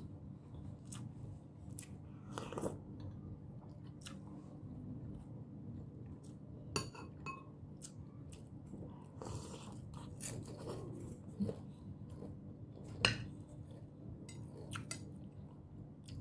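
Close-up chewing and mouth sounds of a person eating, with scattered clinks of a metal spoon and fork against a plate. A steady low hum runs underneath.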